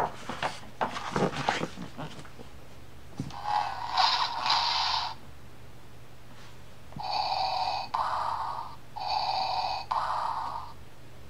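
A stiff board-book page being turned, then a small sound-book speaker playing Darth Vader's respirator breathing: three rasping inhale-and-exhale cycles, each about two seconds long.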